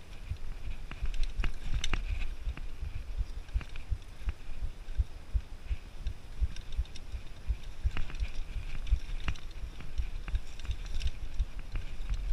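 Mountain bike ridden over rock slabs and rocky singletrack: a low rumble from the tyres on rock, with frequent irregular thumps and sharp clicks and rattles from the bike.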